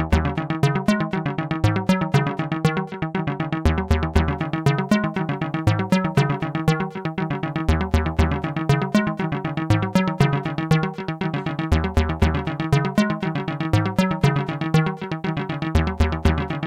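Live hardware house music: a drum-machine beat with fast, steady hi-hat ticks drives a repeating analogue bassline and a staccato synth riff with a touch of delay. The lowest bass notes recur in the same figure about every four seconds.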